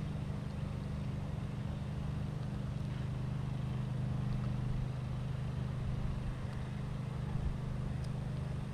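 A steady low hum from a running motor or machine, holding an even pitch throughout.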